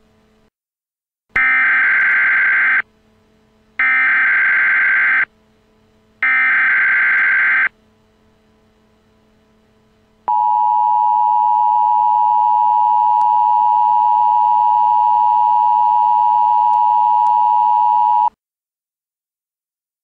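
Emergency Alert System broadcast tones for a tornado warning: three short bursts of SAME digital header data, about a second apart, encoding the alert, then the steady two-tone EAS attention signal held for about eight seconds and cutting off sharply, the cue that the spoken warning follows.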